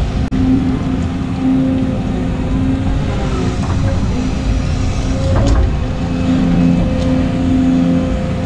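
Volvo EC220 excavator's diesel engine and hydraulics running under load as the bucket digs and swings, heard from inside the cab: a steady hum over a low rumble, with a single knock about five and a half seconds in.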